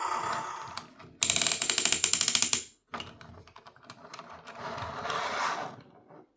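Rapid, evenly spaced mechanical clicking, like a ratchet, for about a second and a half, followed by fainter scattered clicks and a brief rustle.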